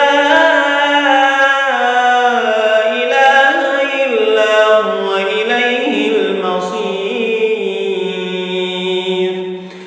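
A man's voice reciting the Quran in slow, melodic murattal style, drawing out long gliding notes, with a brief pause near the end.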